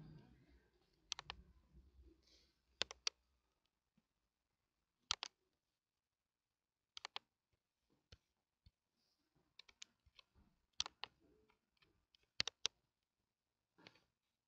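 Sparse clicking at a computer's mouse and keyboard, single clicks and quick pairs every second or two, against near silence.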